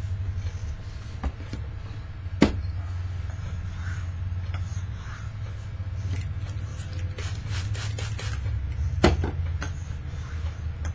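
Straight razor stroked back and forth on a wet hone: faint scraping passes over a steady low hum, with two sharp clicks, one about two seconds in and one near the end.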